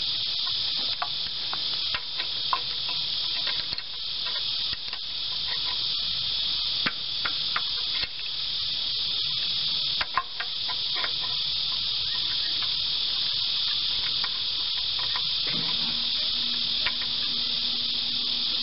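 Steady high-pitched chorus of insects, with scattered light metallic clicks and taps as a spark plug is worked loose from the engine with an adjustable wrench. A low steady hum joins near the end.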